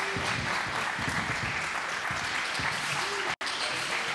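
Steady crowd hubbub in a school gymnasium, with low thuds of basketballs bouncing. The sound cuts out completely for an instant about three and a half seconds in.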